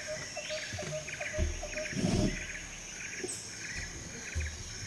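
Crickets chirping in an even, repeating chorus, one short chirp about five times a second under clusters of higher pulses about twice a second. A few dull low thumps come through, the loudest about two seconds in.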